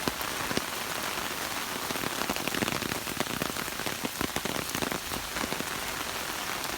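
Heavy rain falling steadily: a dense, continuous patter of drops hitting the ground and foliage.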